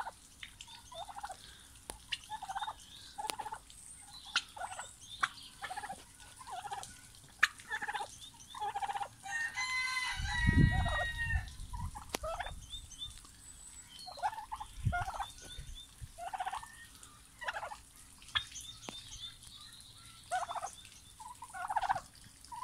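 Turkeys calling, with a Steel Grey turkey tom giving one loud gobble about ten seconds in, among many short repeated calls from the fowl.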